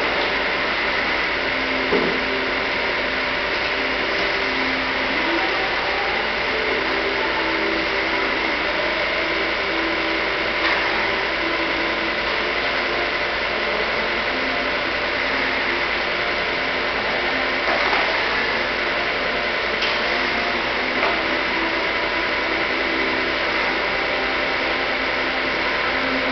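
Vertical milling machine running steadily: a continuous motor hum with a steady high whine, and a few light clicks and knocks.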